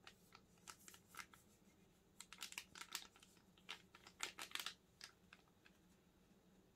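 Quiet handling sounds: a scatter of light clicks and crinkles in uneven clusters, stopping about five seconds in.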